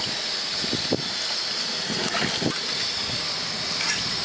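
Steady hiss of a pan of fish gravy bubbling on a gas stove as coconut milk is poured in, with a few light ticks of a ladle stirring near the end.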